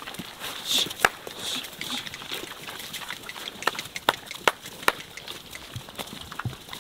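Iberian pigs foraging and moving about: a scattering of sharp cracks, the clearest about a second in and then four in quick succession around the middle, over a faint rustle.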